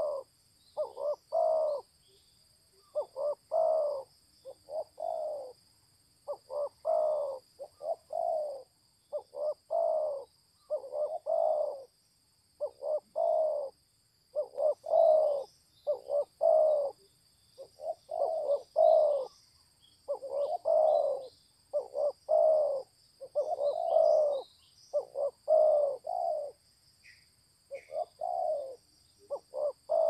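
Spotted dove cooing over and over in low two- and three-note phrases, about one phrase a second with short gaps. Faint high chirps of other birds come now and then, over a steady high hiss.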